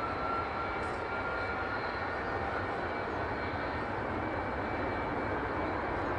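Jet aircraft engine running steadily: an even rushing noise with a faint high whine that drifts slightly up in pitch over the first couple of seconds.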